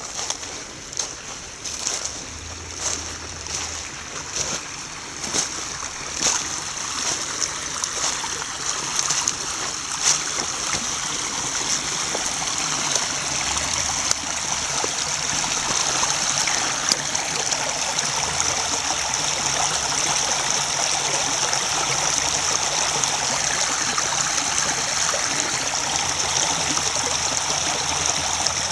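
Small snow-melt brook babbling over rocks and gravel. It grows louder over the first fifteen seconds or so, then runs steadily, with a few short clicks in the first ten seconds.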